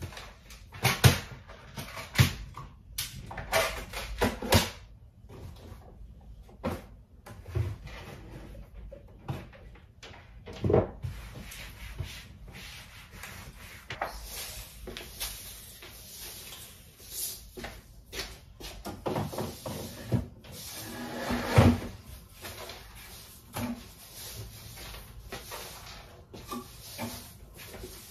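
Household objects being picked up, moved and set down while a desk and shelf are cleared and wiped: irregular knocks and clunks, the loudest about a second in, around four seconds and a little past twenty seconds, with soft rubbing of a cleaning cloth between them.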